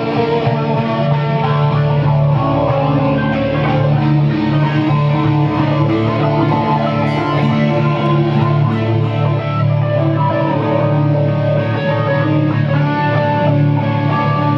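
Two acoustic guitars playing together in a continuous, steady run of chords and notes.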